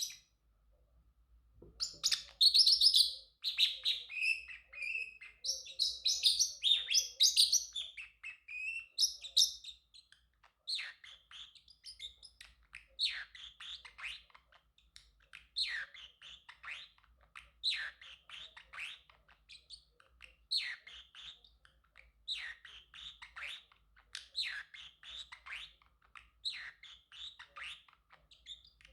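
Male Pacific parrotlet chirping: first a fast, varied run of high chirps and warbles for several seconds, then a short falling call repeated about every two to three seconds.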